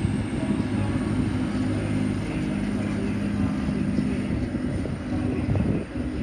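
TransPennine Express diesel multiple unit running past with a steady low engine drone, which turns to a rougher, uneven rumble a little over halfway through.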